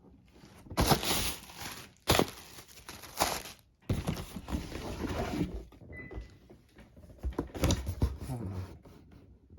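A cardboard box and its packing being opened and handled by hand: several loud bursts of rustling and scraping, with a few thumps.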